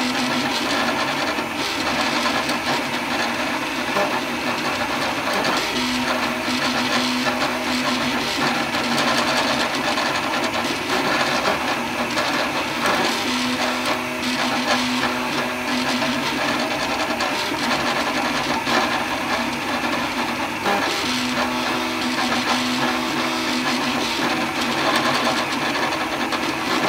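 FDM 3D printer running a print: its stepper motors buzz as the print head and bed move, over the steady whir of the hotend cooling fan, with a low hum that comes and goes every few seconds as the moves change.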